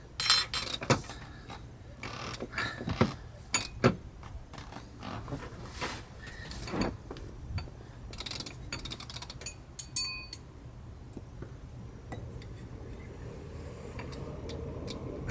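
Metal parts of a Barient sheet winch and its Winchmate self-tailing ring clicking and clinking as they are fitted together and turned by hand. The taps and clinks come at irregular intervals and die away about eleven seconds in.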